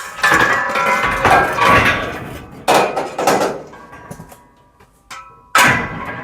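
Metal bed frame pieces clanking and rattling as they are handled. There are sharp metallic knocks about two and a half and five and a half seconds in, each leaving a ringing tone.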